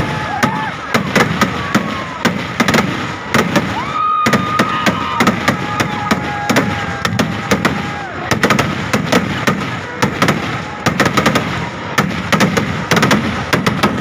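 Fireworks going off in rapid succession: a loud, dense string of sharp cracks and bangs, several a second, as fireworks shoot up from the ground.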